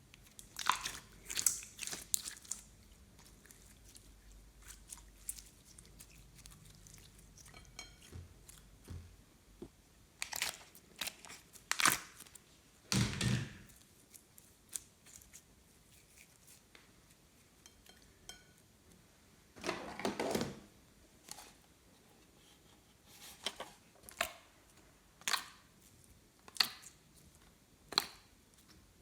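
Glossy slime being pressed, poked and squished by hand, giving irregular sticky clicks, snaps and crackles, with a couple of longer squelches.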